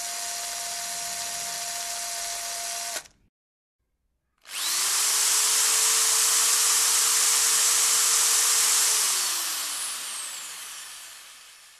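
Cordless drill boring the mounting holes into a motorcycle's steel crash bar, in two runs. The first runs steadily and stops abruptly about three seconds in. After a second of silence the drill starts up again and runs steadily, then is let go about nine seconds in and spins down, its whine falling in pitch as it fades.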